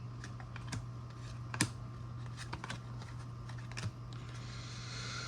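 Trading cards being handled and flipped through by hand, giving a run of small irregular clicks and taps, the sharpest about one and a half seconds in, over a steady low hum.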